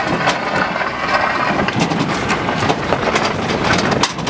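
Land Rover Defender driving over a rough, rocky dirt track, heard from its open back: the engine runs steadily with frequent knocks and rattles as the body bounces over the rocks.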